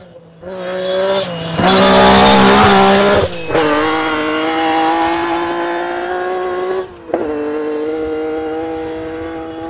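Lancia Stratos rally car's Ferrari Dino V6 running hard as it comes up and passes, loudest about two seconds in with a rush of noise over the engine note. The note then drops and holds as the car pulls away, with a short break in it about seven seconds in, and fades toward the end.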